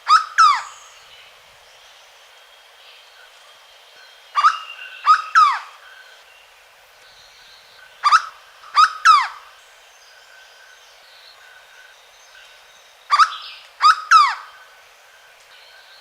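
Hooded berryeater (corocoxó) singing: loud phrases of two or three falling notes, repeated about every four to five seconds. One phrase ends at the very start, and three more follow.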